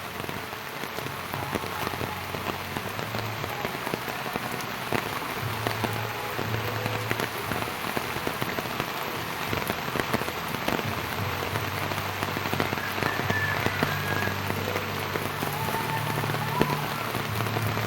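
Steady rain falling, a dense even hiss of many small drops striking a surface, with a low hum underneath.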